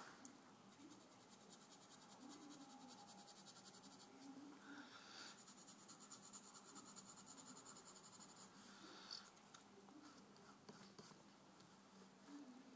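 Pencil sketching on paper: faint, quick scratching strokes in two runs, about two seconds and three and a half seconds long, over a faint steady low hum.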